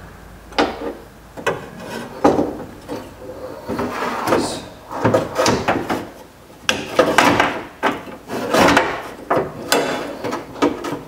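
Steel power window regulator and motor assembly being worked into a truck door's inner panel: irregular clunks and scraping of metal against the door's sheet metal.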